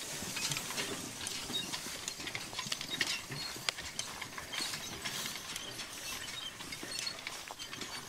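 Horse-drawn New Holland side-delivery hay rake rattling and clicking as its ground-driven reel turns through the cut hay, growing slightly fainter as it moves away.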